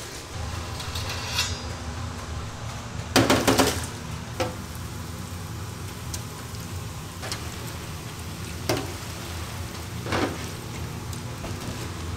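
Donut holes frying in a large fryer of hot oil, a steady sizzle over a low hum. A burst of metal rattling a little after three seconds in and a few single clinks later as the fryer's wire screen is handled.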